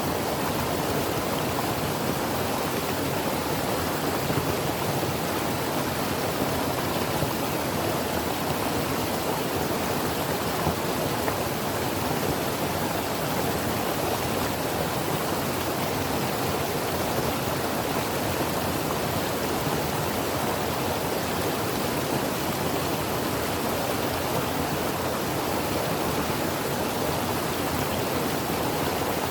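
Creek water rushing and burbling over rocks, a steady, even rush.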